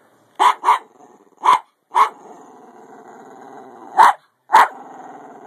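Small Jack Russell terrier barking and growling in play: six short, sharp barks, two in quick succession at first and then singly, with a low rumbling growl running between them.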